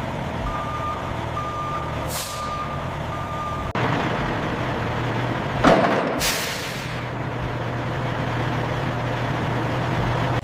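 Heavy truck's reversing alarm beeping four times in a steady rhythm, with two sharp air-brake hisses, one early and one past the middle, and the engine running underneath.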